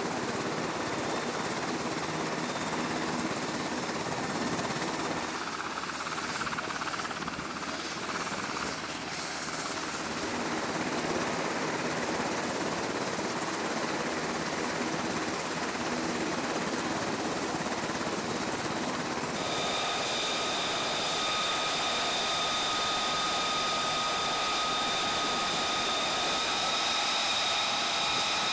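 Jet aircraft engines running on a flight deck: a steady rushing noise, joined about two-thirds through by a high, steady turbine whine.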